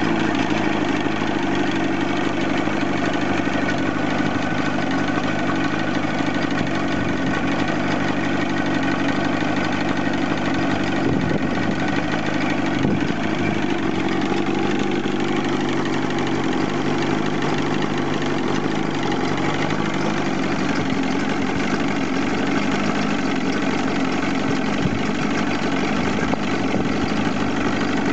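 Johnson 115 outboard motor running at a steady, even speed with no revving, after ten months out of use.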